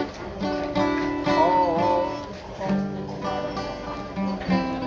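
Acoustic guitar strumming chords as a live song comes to its end. A short held, wavering note, likely sung, sounds about a second and a half in.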